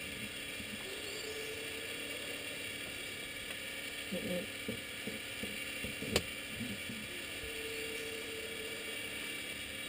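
Cessna 172 engine primer being pumped by hand in the cockpit before start: a few soft mechanical clunks about four to five seconds in and a sharp click about six seconds in, over a steady hiss and faint electrical whine with the master switch on.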